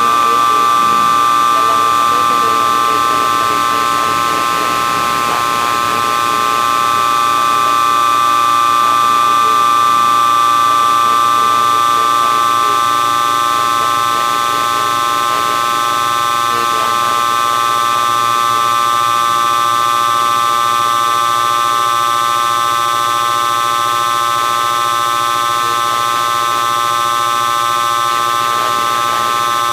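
Electronic drone of many steady held tones layered together, the strongest in a high middle register, swelling slightly in loudness and easing back.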